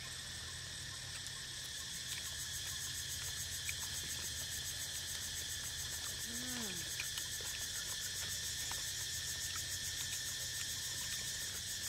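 Steady high-pitched chorus of evening insects, with a faint low hum underneath and one short low falling voice-like sound about six seconds in.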